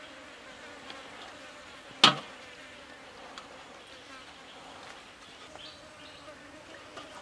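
Flying insects buzzing steadily, with one sharp knock about two seconds in.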